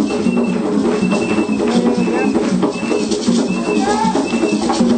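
Live percussion music, drums with shakers rattling, played steadily for dancers, with a crowd's voices mixed in.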